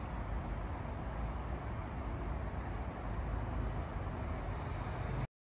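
Steady street traffic noise, a low rumble with no distinct engine note, which cuts off abruptly near the end.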